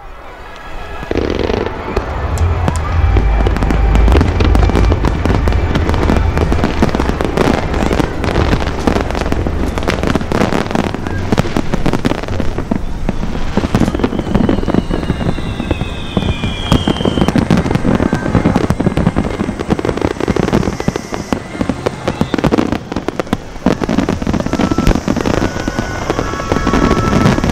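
Aerial fireworks display: a dense, continuous run of shell bursts and crackle, with heavy deep booms in the first several seconds. About halfway through, a whistle slides down in pitch.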